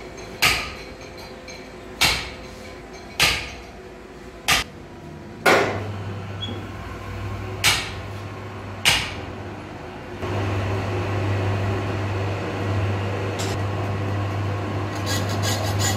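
Seven sharp metal clanks at a large lathe's four-jaw chuck while a clutch pressure plate is set up in it. The lathe then runs with a steady low hum that grows louder about ten seconds in, the chuck and plate spinning.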